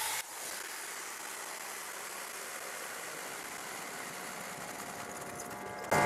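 Greenworks 2300 PSI electric pressure washer spraying water through a 25-degree nozzle into a lidded bucket, with the trigger held: a steady hiss of spray.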